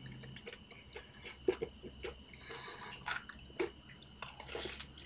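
Mukbang eating sounds: scattered wet mouth clicks and chewing, then a denser crisp crunch about four and a half seconds in as a piece of crispy fried shrimp is bitten.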